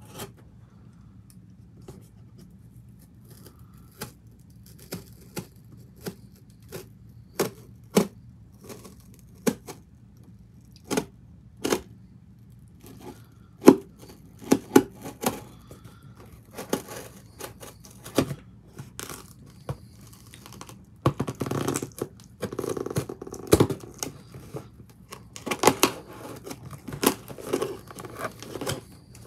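Scissors cutting open the top of a cardboard shipping box: a series of sharp snips and scrapes against tape and cardboard, spread out at first and coming thick and fast in the last third.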